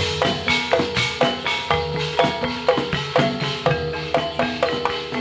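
Javanese gamelan accompaniment: struck metallophones ring out a quick, even run of notes, about three or four a second, over drumming.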